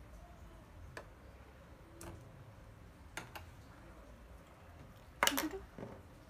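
Faint, sharp clicks and taps from handling small objects: single light ticks about a second apart, then a louder quick cluster of clicks about five seconds in.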